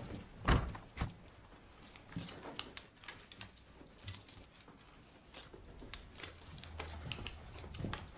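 Scattered footsteps, clothing rustles and small knocks of people walking into a small office, ending with a chair being pulled out and sat in; the loudest knock comes about half a second in.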